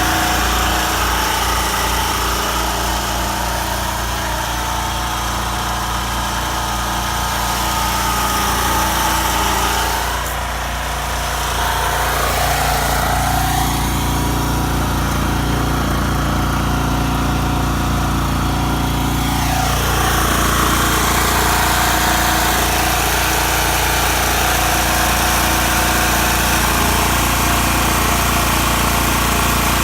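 Champion portable generator's engine running steadily under an electric heater load. Its sound dips briefly about ten seconds in, changes, and settles again about twenty seconds in as the heater load is switched between settings.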